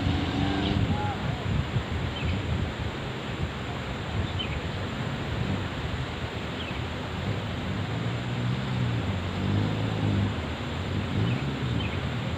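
Off-road Jeep running under steady wind noise on the microphone, with faint short high chirps every couple of seconds.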